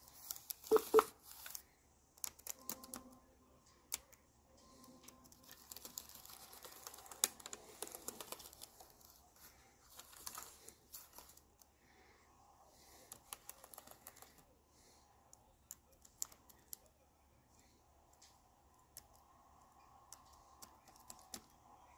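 Keys on a ThinkPad T460's replacement aftermarket laptop keyboard being pressed one after another, light irregular clicks with short pauses, as each key is tested in turn.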